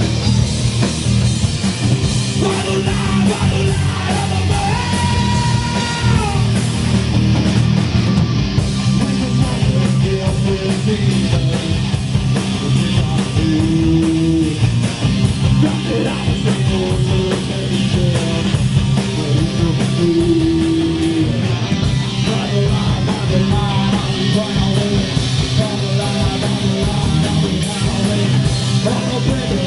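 Heavy metal band playing live: distorted electric guitars, bass guitar and drums, loud and continuous.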